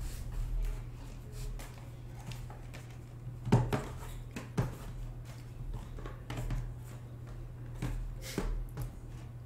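Shrink-wrapped cardboard card boxes being handled and stacked on a table: scattered soft knocks and taps as they are set down, the loudest about three and a half seconds in, over a steady low hum.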